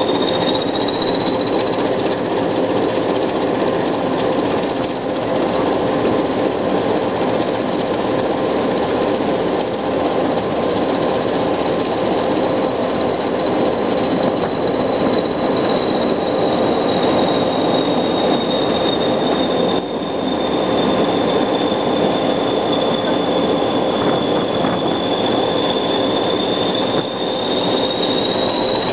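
English Electric Class 20 diesel locomotive 20188 running at speed, its turbocharged eight-cylinder engine working steadily under load over continuous wheel and rail noise. A high, thin whistle drifts slowly up and down in pitch over the engine.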